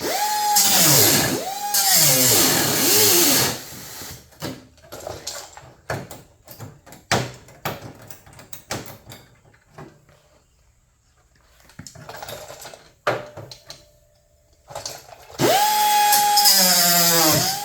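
A small handheld grinding tool trimming the steel edge of a hood patch panel in short runs. Three times it whines up to speed, holds, and winds down: twice at the start and once more near the end. Scattered clicks and taps from handling the metal and tool fall between the runs.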